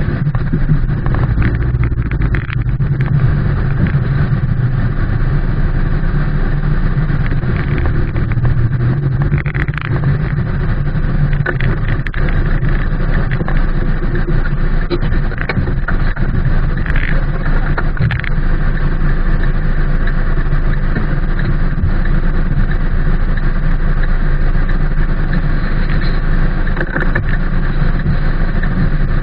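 Rain falling on a car, heard from inside the cabin: a steady, dense noise with a strong low rumble and a few faint sharper ticks.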